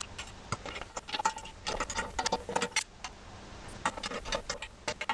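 Irregular metallic clicks and light clinks of small wheel-assembly hardware, bolts and nuts, being handled and fitted by hand on a 3-piece wheel.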